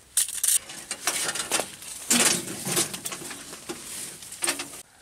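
A small sheet-metal wood stove and a tin can being handled: a run of short, irregular knocks, clanks and scrapes with rustling.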